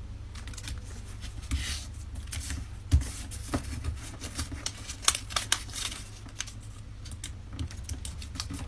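Paper being folded and creased by hand: irregular crinkles, rustles and small taps over a steady low hum.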